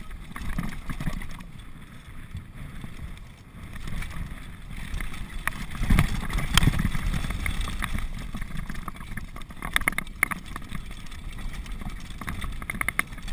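Downhill mountain bike running fast down a dirt trail: wind buffeting the action camera's microphone over a steady rumble of tyres on dirt, with sharp knocks and rattles from the bike over bumps, the loudest about six seconds in and a run of them about ten seconds in.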